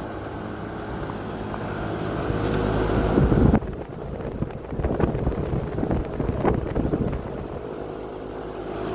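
Heating equipment outside a house running with a steady hum that builds for a few seconds and cuts off sharply about three and a half seconds in. After that comes uneven rustling and wind noise on the microphone with a few light knocks.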